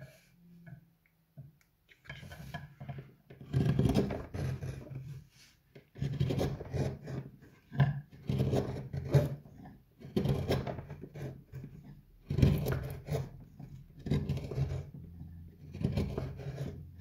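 Hand carving gouge cutting into the hollow of a wooden bowl: a series of short scraping, rasping cuts, each a second or two long, starting about two seconds in after a few light clicks.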